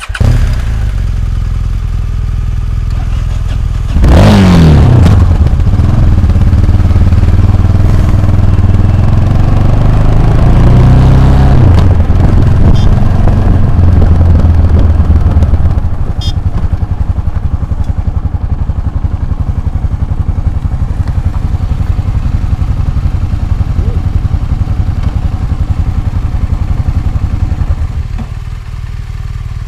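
Motorcycle engine running under way off-road, with a sudden loud jump about four seconds in. The revs climb between about six and eleven seconds, then ease off twice, at about sixteen seconds and near the end.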